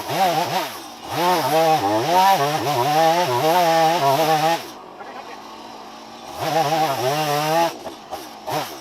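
Gas chainsaw revving in repeated surges while cutting. It drops back to idle for about a second and a half, then revs up again.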